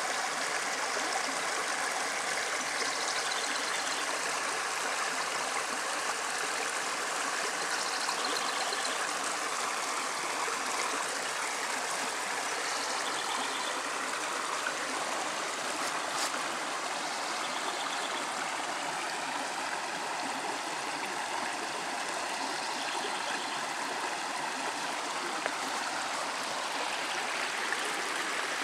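Shallow creek water flowing over rocks, a steady babble of running water.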